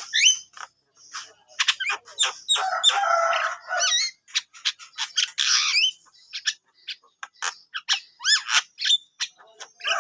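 Javan myna singing: a busy, jumbled run of sharp clicks, quick rising whistles and harsh scratchy chatter, in short flurries with gaps between.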